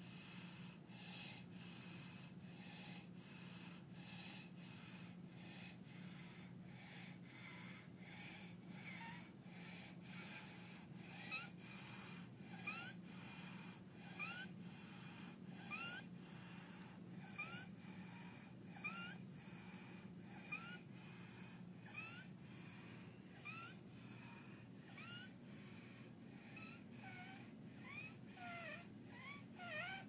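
Faint, noisy breathing of an infant with croup: a harsh inspiratory stridor on breath after breath. From about a third of the way in, each breath carries a short rising squeak, roughly every second and a half.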